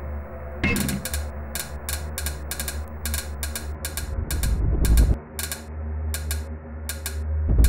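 Film score sound design: clock-like ticking, about three ticks a second, over a low droning bass. The bass swells deeply about five seconds in and again near the end.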